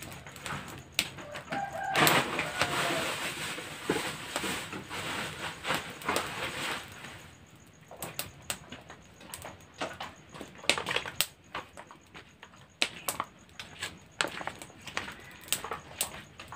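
Firewood crackling and popping in an earthen wood-fired stove, with a louder stretch of hissing and crackling from about two to seven seconds in. A chicken clucks briefly about two seconds in.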